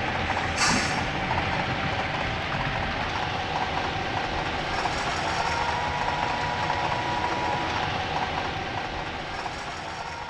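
HO scale model freight cars rolling along the track and over a trestle, a steady clattering of small wheels on rail with a faint hum, and one short sharper clatter under a second in. The sound fades near the end.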